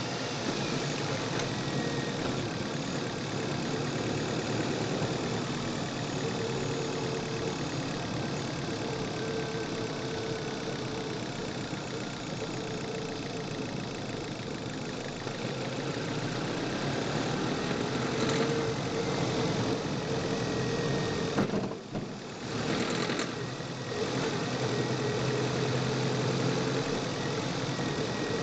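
Chevrolet car engine running, recorded from the engine bay, knocking under acceleration, which the owner takes for fuel knock. The engine sound drops away twice, briefly, a little past twenty seconds in.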